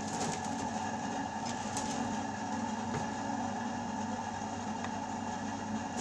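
A steady machine-like hum, with a few faint clicks of small parts being handled.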